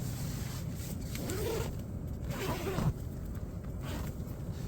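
Nylon tent window zipper being pulled open in a few rasping strokes, mostly between about one and three seconds in, over the steady low hum of a running diesel heater.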